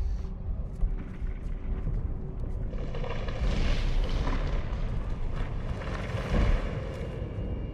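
Film soundtrack mix of deep, continuous rumbling and booming with music underneath, swelling into a denser, hissing wash about three seconds in.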